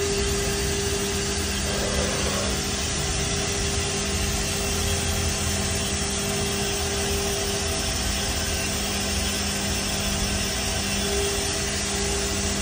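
Haas ST-30SSY CNC lathe running: a steady machine hum with two held tones, one lower and one higher, over an even hiss.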